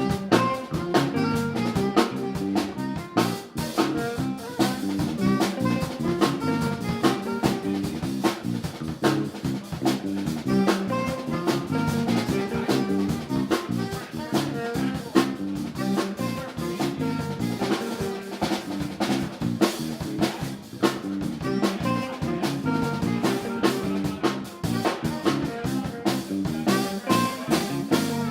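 Live band playing a jazz instrumental, with a drum kit keeping a busy beat under the melody.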